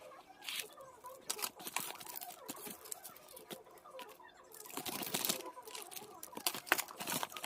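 Packaging crinkling and tearing as items are unwrapped, with scattered small clicks and a denser burst of rustling about five seconds in.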